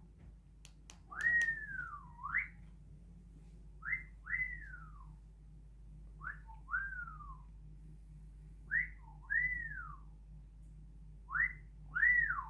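A two-note whistle repeated five times, about every two and a half seconds: each a short upward note followed by a longer note that rises and then falls away. A few faint clicks come in the first second.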